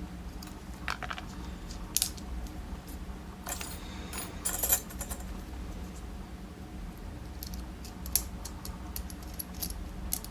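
Scattered light metallic clicks and clinks from small lock parts being handled while a Schlage Everest padlock core is taken apart, with a busier cluster about four seconds in.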